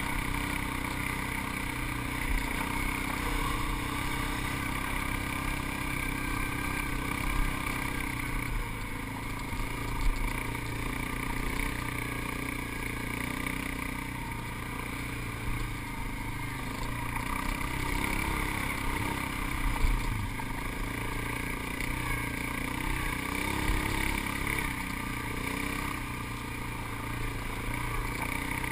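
ATV engine running steadily as the quad rides over sand, with a few brief knocks from bumps along the way.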